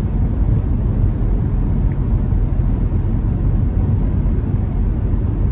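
Steady road and engine rumble inside a moving car.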